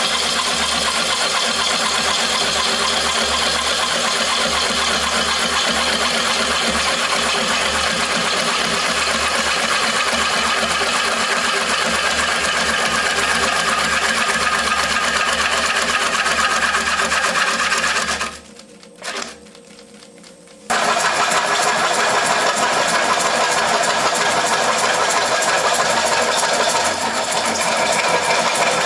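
Turning tool cutting into a large spinning wood bowl blank on a Oneway 2436 lathe: a loud, steady shearing noise of wood being cut, with the lathe running underneath. The cutting noise drops away for about two seconds just past the middle, then starts again.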